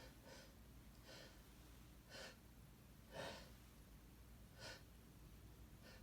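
A person's faint, short breaths, about five or six of them, in the pause between sneezes, the loudest a little past three seconds in.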